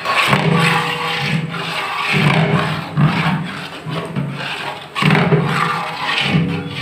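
A long ladle stirring and scraping a thick, wet biryani masala around a large aluminium pot, over music playing in the background.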